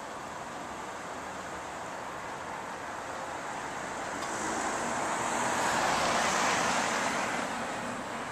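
A car passing by: road noise that grows louder to a peak about six seconds in, then fades away.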